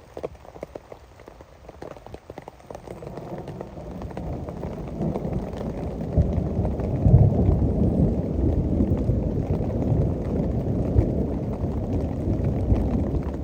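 Rain dripping and pattering, then a deep rumble that builds from about four seconds in and rolls on through the rest: thunder over steady rain.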